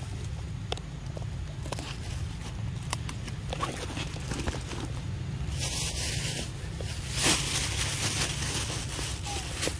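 Rustling and crackling in dry leaf litter, with scattered small clicks and snaps; the rustling grows louder and hissier twice in the second half. A steady low rumble runs underneath.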